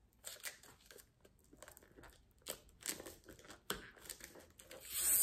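Paper wrapping crinkling and tearing in short, irregular rustles as a wrapped book is opened by hand, loudest near the end.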